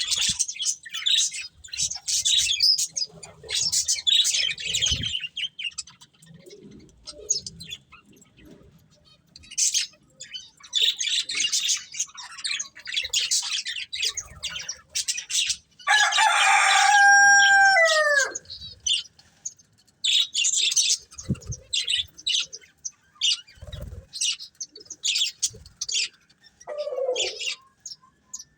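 Pet budgerigars chirping and chattering in quick, high bursts, with short pauses between clusters. A little past halfway there is one louder, drawn-out call lasting about two seconds that drops in pitch at its end.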